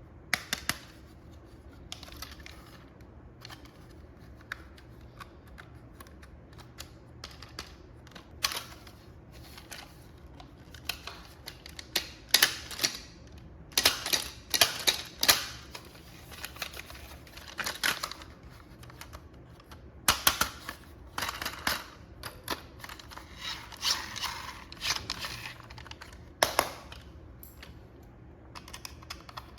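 Irregular clicks, taps and crinkling of hands handling a toy RC car and its plastic and cardboard packaging.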